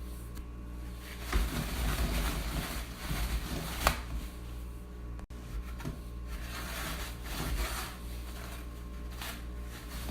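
Toilet paper rustling as it is pulled and unrolled off the roll, in uneven bursts of paper noise, with a sharp snap about four seconds in.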